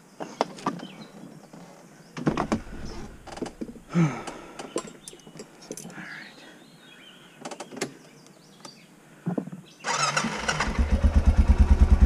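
Scattered clicks and knocks, then about ten seconds in a Honda ATV engine starts and settles into a fast, even low pulsing run.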